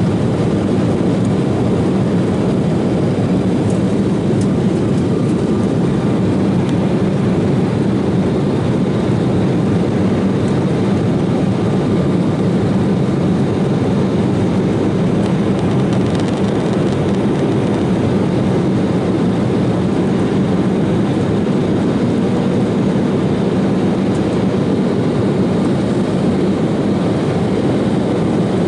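Cabin noise inside an Embraer 190 airliner in flight: the steady, deep drone of its wing-mounted GE CF34-10E turbofan engines blended with rushing air, unchanging throughout.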